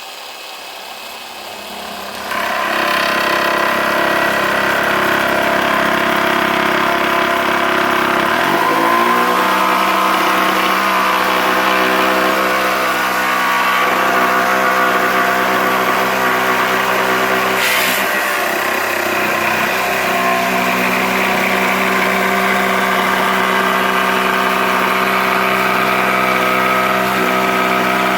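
Cordless Parkside jigsaw running steadily, its motor getting louder about two seconds in and shifting pitch twice. A short sharp click comes about two-thirds of the way through.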